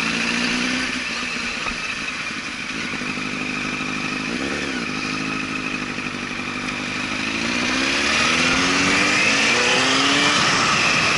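2005 Honda CBR1000RR Fireblade's inline-four engine running at low speed, with a brief rise and fall in pitch a little before halfway, then pulling away with the pitch and loudness climbing steadily as the bike accelerates.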